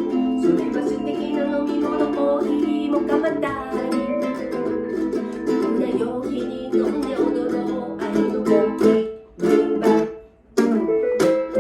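Mini guitar strumming chords with mini keyboards playing a rumba. Toward the end the playing turns into short, choppy hits, stops briefly, then comes back in.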